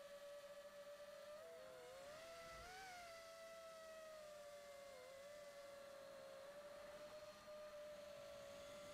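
Faint, steady whine of a 5-inch FPV quadcopter's brushless motors, picked up by its onboard camera. The pitch splits into several wavering tones about a second and a half in as the motors change speed, and dips briefly about five seconds in.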